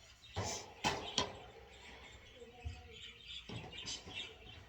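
Metal bird-cage parts knocking and clinking together as they are handled, three sharp knocks in the first second or so, then quieter handling noise.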